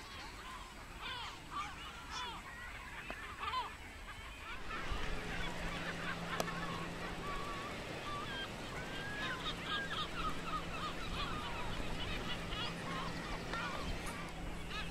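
Seabird colony: many birds calling over one another in short, rising and falling cries. The calling grows louder and denser about five seconds in, where a low steady hum also starts.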